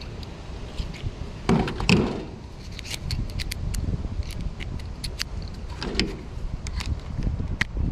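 Clattering and knocking as the plastic top cover and wire fan guard of an outdoor AC condenser are lifted and handled, with scattered sharp clicks and louder knocks about one and a half seconds in and again around six seconds.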